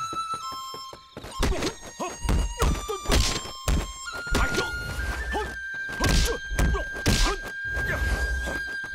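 Martial-arts film fight sound effects: a rapid series of punch and kick hits with whooshes, starting about a second and a half in. Under them runs a high held note of the score that steps up in pitch several times.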